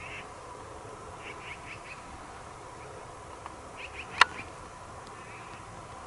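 Short, high chirps of elk cows and calves, coming in small groups of three or four quick calls. A single sharp click or snap a little past the middle is the loudest sound.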